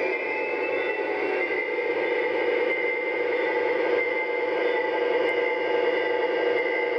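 Lionel O-scale Union Pacific diesel locomotive model running slowly along three-rail track, pulling a box car, with a steady hum made of several held tones. The tones rise slightly in pitch in the first second and a half.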